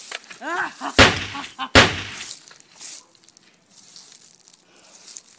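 Two loud gunshot bangs, about three-quarters of a second apart, each with a short fading tail. A brief vocal sound comes just before them.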